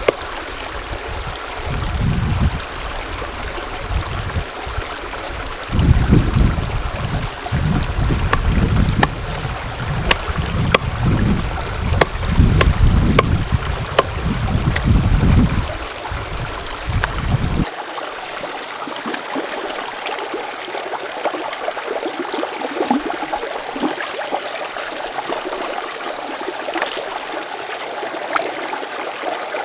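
Mountain stream running, a steady rush of water with scattered small splashes and clicks. Low rumbling surges come and go over the first part and stop suddenly about two-thirds through.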